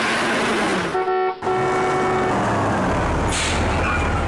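Busy street traffic noise, with a single vehicle horn honk starting about a second in and lasting about a second.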